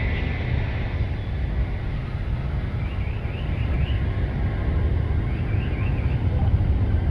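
Steady low rumble of jet airliner engines running at the airport, with two short runs of quick, high rising chirps around the middle.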